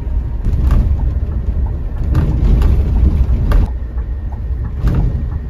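Heavy, steady low rumble of a moving bus, engine and road noise together, with a few sharp knocks or rattles scattered through it.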